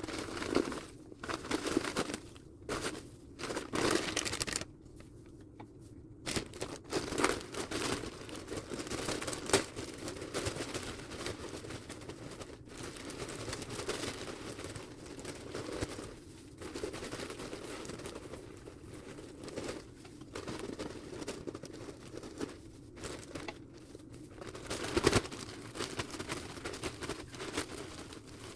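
Dry hay and small-animal bedding rustling and crackling irregularly as it is pulled apart and spread by hand, with a few sharper snaps.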